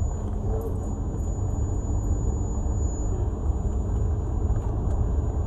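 Steady low rumble inside a moving car: road and engine noise heard from the cabin.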